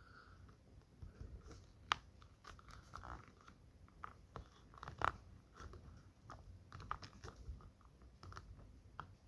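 Faint, scattered small clicks and short crackles, irregular, with a slightly sharper click about two seconds in and another around five seconds.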